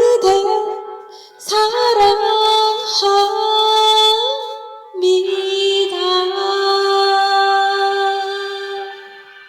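Closing bars of a slow ballad: long held melodic notes entering three times, one with vibrato, then fading out near the end.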